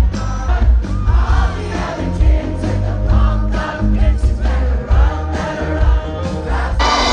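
Live band playing over a loud concert sound system, heard from within the crowd: a heavy pulsing bass beat under a singer's voice. Just before the end it cuts abruptly to a louder, denser wash of a crowd cheering.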